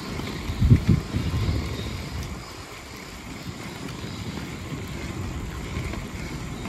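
Wind buffeting a microphone while cycling along a road, a low steady rush with a louder gust about a second in.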